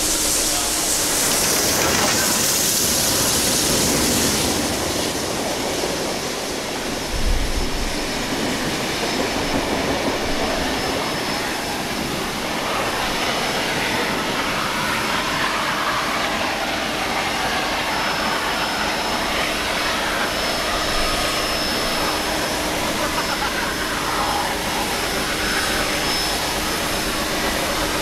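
A steam locomotive standing with steam hissing: a loud hiss for the first few seconds, then a steady rush of steam and machinery noise, with one low thump about seven seconds in.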